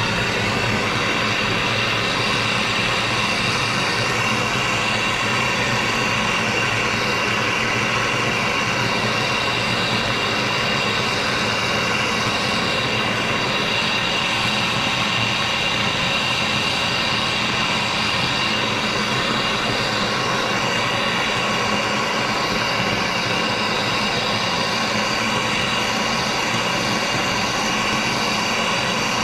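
Vapor blasting cabinet running steadily: a continuous, even hiss of the blast with a steady hum and a high whine underneath.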